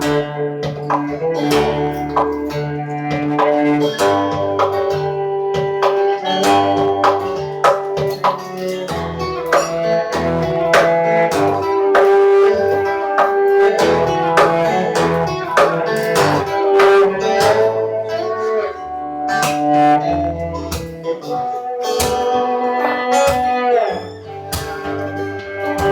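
Acoustic guitar and cello playing together live: the guitar is picked in a quick run of plucked notes while the cello holds long, sustained notes over it.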